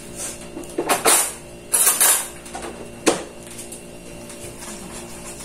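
Kitchenware clattering: dishes and utensils knocked and clinked together in three short spells, about one, two and three seconds in, over a steady low hum.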